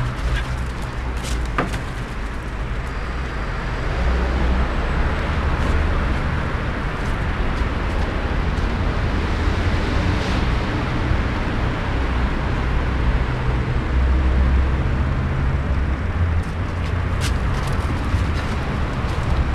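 Steady outdoor background noise: a fluctuating low rumble under a hiss, with a couple of faint clicks.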